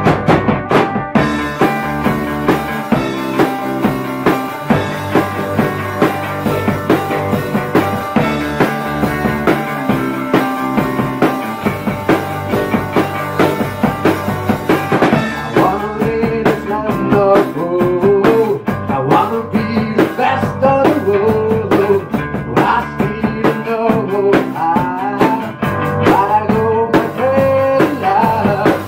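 Rock band playing live: electric guitars, bass guitar and a drum kit. About halfway through, a male lead vocal comes in over the band.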